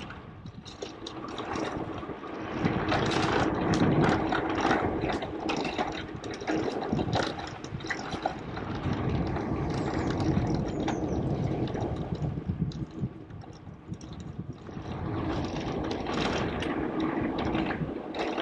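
Riding noise from an e-bike rolling along an asphalt street: a steady rush of tyre and air noise with frequent small rattles and clicks from the bike.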